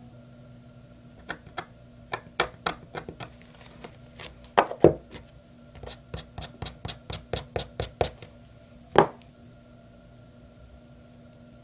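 Irregular run of short, sharp clicks and scratches as a craft knife tip picks at the surface of hot-press watercolor paper, with hands handling the card. Two louder knocks stand out, about five and nine seconds in.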